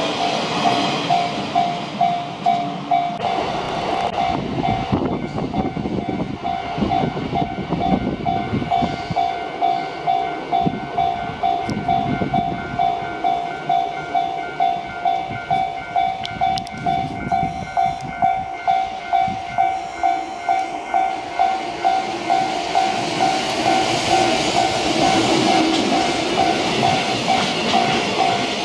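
Japanese level-crossing warning bell ringing its steady two-tone clang, a little under two strikes a second, while a train rumbles through the crossing. The wheel and rail noise is heaviest from about four seconds in until a little past twenty seconds.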